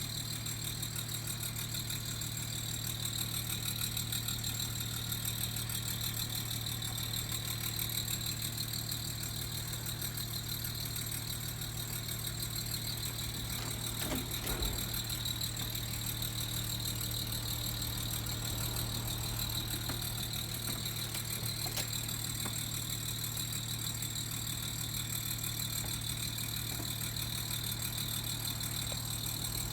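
Panasonic CU-EX280D air conditioner outdoor unit running in cleaning mode after cooling has stopped, with a steady low hum and a steady high whine, a noise the owner finds strange and loud. A brief knock sounds about halfway through.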